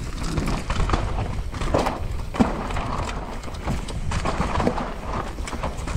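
Downhill mountain bike running over a rough dirt trail: tyres on the ground with many quick knocks and rattles from bumps, over a steady low rumble of wind on the microphone.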